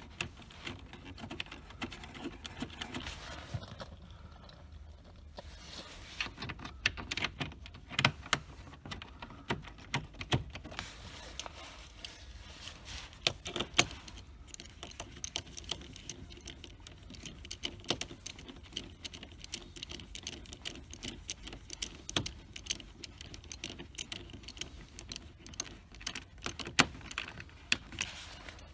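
Irregular light metallic clicks, clinks and rattles of small metal parts or tools being handled, with a few sharper knocks about 8, 14 and 27 seconds in.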